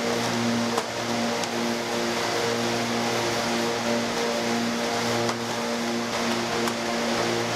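Food-factory machinery running with a steady hum and rushing noise, with a few light clicks.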